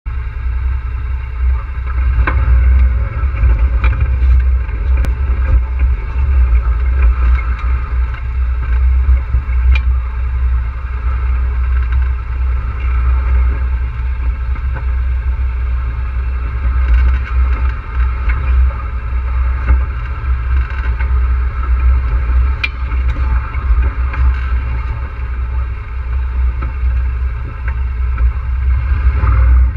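ATV running steadily while riding over rough ground: a continuous deep rumble, with a few sharp clicks or knocks scattered through.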